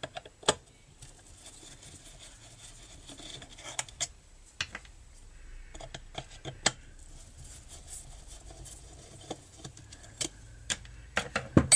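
Screwdriver working on a string trimmer's metal muffler cover: light scraping and rubbing with scattered sharp metal clicks, the loudest click near the end.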